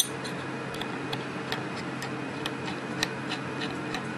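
Faint, regular light ticking, about three ticks a second, over a steady low hum.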